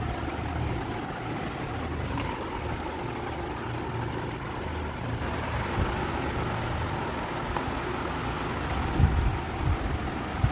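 Steady low hum and background noise, with a few low bumps from handling about nine seconds in.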